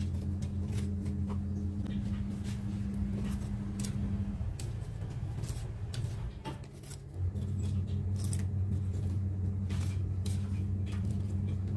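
A perforated metal frying spatula clicking and scraping as fried tempeh fritters (mendoan) are slid off it onto banana leaves in a plastic tray. Under the clicks a steady low hum runs, dropping out for a couple of seconds near the middle.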